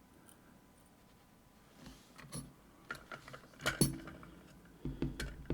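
Small metal lock parts from a disassembled Assa Guideline lock clicking and clinking as they are handled: a quiet start, then a quick run of sharp clicks a couple of seconds in, the loudest near the middle and another cluster near the end.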